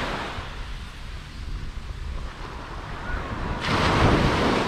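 Sea surf on a beach, with a wave breaking loudly near the end, over the constant low rumble of wind buffeting the microphone.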